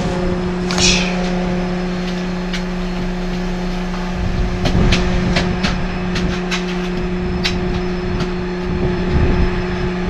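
An engine running steadily at a constant speed, with scattered sharp clicks and knocks and a short hiss about a second in.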